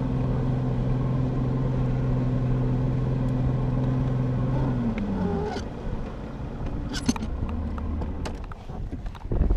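Bass boat's outboard motor running under power with a steady drone, then throttled back about five seconds in: its pitch falls and it settles to lower, quieter running.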